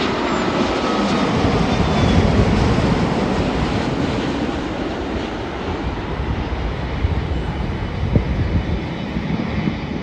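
Boeing 787-8 Dreamliner landing, its GEnx jet engines giving a loud, steady roar that swells to a peak about two seconds in and then slowly eases off.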